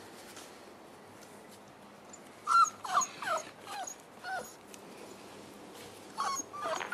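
Five-week-old Boerboel puppies whimpering: short high cries that each fall in pitch, about five of them in quick succession a few seconds in, then two more near the end.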